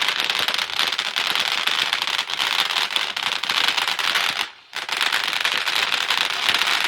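Consumer ground firework spraying sparks with a dense, continuous crackle of tiny pops, broken by a short gap about four and a half seconds in.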